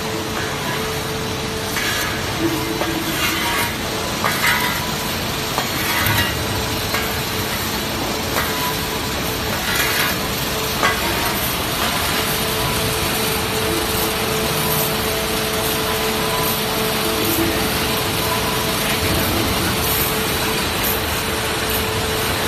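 Steady industrial machinery noise, a dense hiss with a constant hum underneath, and scattered clattering and rattling in the first half.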